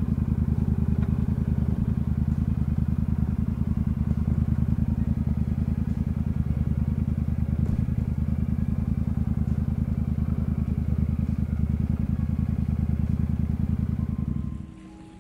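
Royal Enfield Super Meteor 650's 648 cc parallel-twin engine running at steady revs, a low, even throb with no gear changes; it drops away abruptly near the end.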